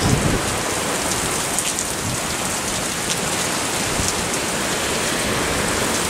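Heavy rain falling steadily in a storm, hitting a soaked wooden deck, with faint ticks of single drops.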